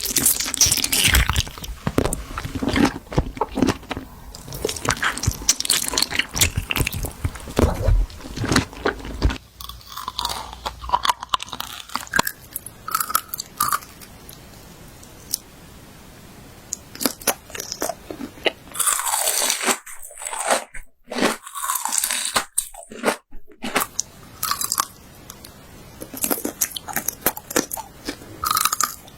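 Close-up crunching of crisp food being bitten and chewed. Dense crackling chews for the first nine seconds or so, then sparser bites and crunches with short quiet gaps.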